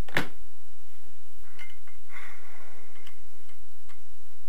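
Light metallic clicks and clinks as a steel washer is picked at in a bolt recess of a Honda VFR800 cylinder head: one sharper click just after the start, then a few faint ticks and a short scrape.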